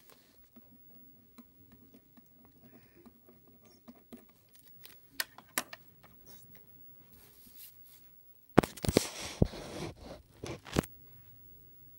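Handling noise on the recording device: a sleeve's fabric brushing and rubbing over the microphone, with a few light clicks, then about two seconds of loud scraping, rustling and knocks as the device is picked up and moved, near the end.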